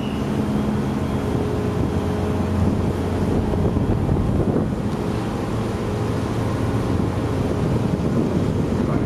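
Large car ferry's engines and shipboard machinery running with a steady low drone, mixed with wind rushing on the microphone.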